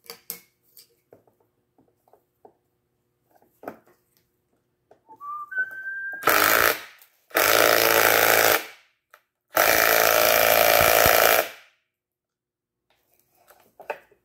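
A power drill-driver driving a fastener that pulls the glued boards together. Three loud bursts of about half a second, a second and two seconds come after a short rising whine about five seconds in, with light clicks of handling in between.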